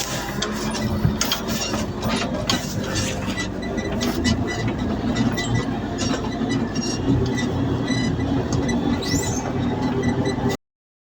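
Off-road vehicle driving over rough ground: a steady engine hum under continuous irregular rattling and clatter, with a brief rising whistle near the end before the sound cuts off suddenly.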